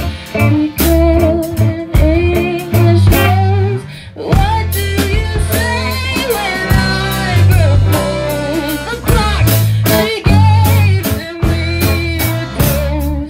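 Rock band playing a sea shanty in surf-rock style: singing over guitar, bass and drums.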